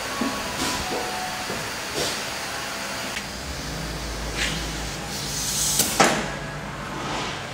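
Workshop background noise with scattered knocks and clicks, and a hiss that builds for about a second and ends in a sharp click about six seconds in.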